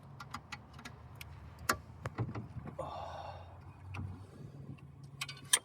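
Scattered clicks and knocks of car parts being handled and tried in place during reassembly, with a brief scrape about three seconds in and a couple of sharper knocks near the end.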